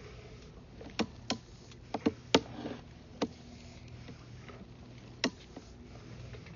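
Irregular sharp clicks, about seven in all and clustered in the first half, over a steady low hum.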